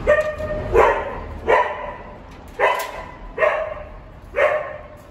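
A dog barking six times: short, loud, evenly paced barks, a little under a second apart with one longer gap in the middle.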